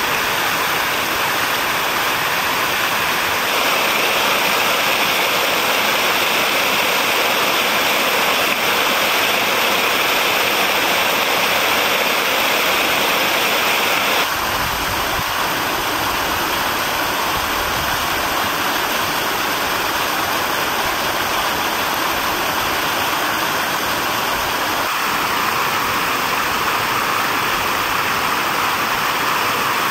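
Steady rush of falling water from large ornamental garden fountains, its tone shifting abruptly about 4 and 14 seconds in.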